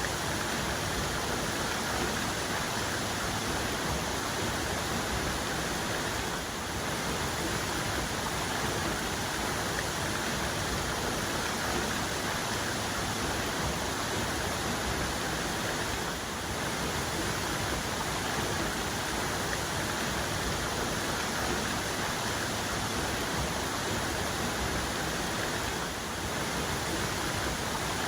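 Waterfall's main cascade: water pouring and splashing in a steady, unbroken rush.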